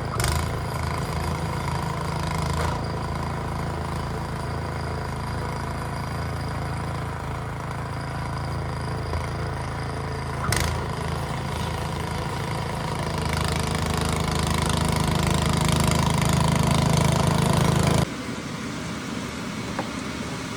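A steady engine hum that grows louder over several seconds near the end, then cuts off abruptly and leaves a quieter hum. Two sharp clicks, one at the start and one about ten seconds in.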